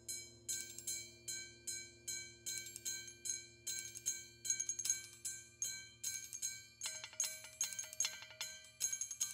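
Percussion ensemble playing: a steady pulse of ringing strikes about three a second, with more percussion joining in about seven seconds in and the strikes growing denser.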